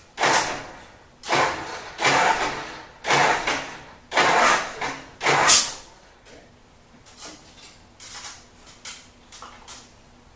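Rebuilt White 160AX six-cylinder gasoline engine being turned over by its starter in five short bursts, about one a second, each a loud rushing churn. It does not catch and run. After the bursts there are only a few faint clicks.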